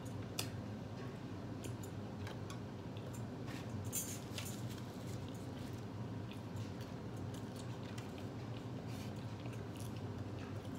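A person chewing and biting food close to the microphone, with scattered small crisp clicks of mouth sounds. A steady low hum from a running air conditioner lies underneath.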